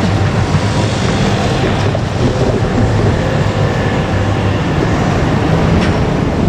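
A vehicle engine running steadily with a low hum over a broad rushing noise, and a brief sharp tick near the end.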